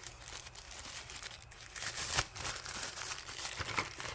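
Packaging of a tire-pressure monitor kit crinkling and rustling as it is searched by hand, with a louder burst of crinkling about two seconds in.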